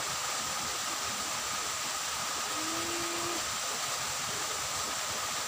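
Steady rushing hiss of water running in a ditch, with a faint steady high tone over it and one short low tone lasting under a second near the middle.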